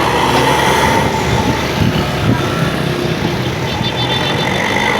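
A heavy bus passing close by, its diesel engine and tyre noise loud and steady, with a faint high tone held in the first second or so.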